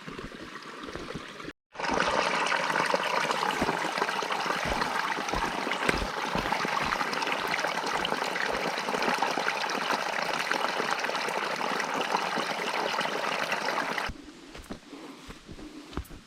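Mountain stream water rushing steadily over rocks. It cuts in suddenly about two seconds in and cuts off near the end, leaving quieter outdoor sound with soft footsteps.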